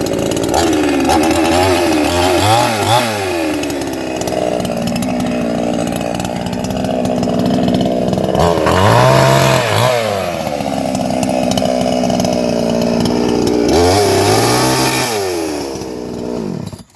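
Chainsaw running and cutting off the ends of firewood logs, its engine note rising and falling several times as it bites into the wood. It stops just before the end.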